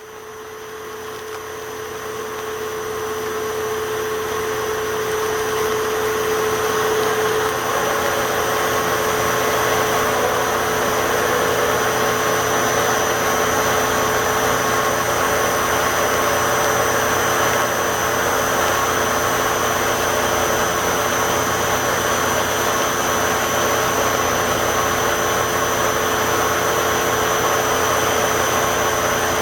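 Steady power-plant machinery noise: a dense hiss with a few steady hums and whines underneath. It rises over the first several seconds, then holds level.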